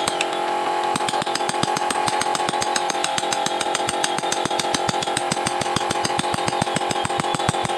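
A wood-carving tool at work, with rapid, evenly spaced clicks, several a second, over a steady hum.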